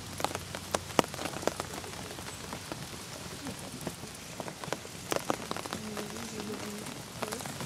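Steady rain falling, with scattered sharp drops striking close to the microphone at irregular intervals.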